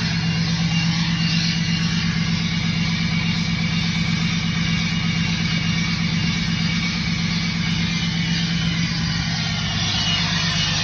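A tuned and emissions-deleted 6.7 L Cummins turbo-diesel in a 2017 Ram pickup holding a steady high idle, with a high turbocharger whistle riding over the engine's drone.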